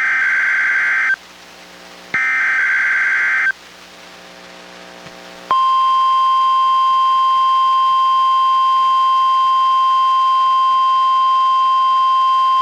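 NOAA Weather Radio SAME digital header bursts, each a harsh screeching data burst lasting about a second and a half: one ends about a second in and another follows a second later. About five and a half seconds in, the steady 1050 Hz NWR warning alarm tone starts and holds, received on a Reecom R-1630 weather radio during a Required Weekly Test.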